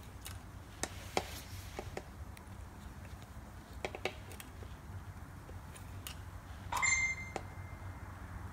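Small ticks and taps of needle-nose pliers working thin beading wire, with a brighter metallic clink that rings briefly about seven seconds in, over a steady low hum.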